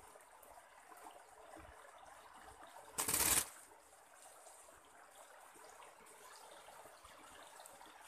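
Creek water trickling faintly and steadily, with one brief loud burst of noise about three seconds in.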